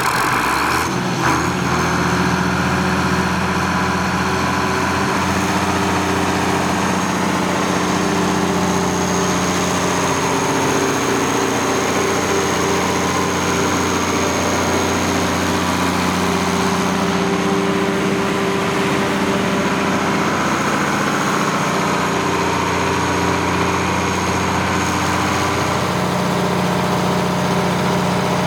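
Cummins 6CTA8.3 inline six-cylinder turbodiesel of a 150 kW generator set running steadily just after starting, with a steady high whine over the engine note.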